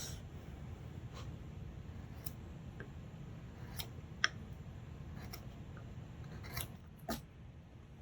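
Stanley carving chisel cutting wood by hand: short, separate slicing scrapes, about one a second and irregularly spaced, over a low steady hum.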